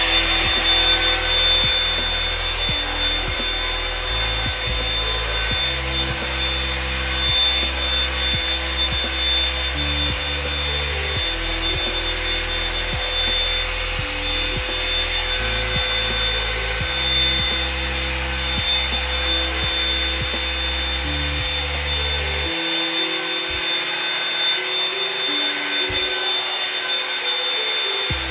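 Blow dryer brush running steadily: a high motor whine over a rush of air. Background music plays underneath.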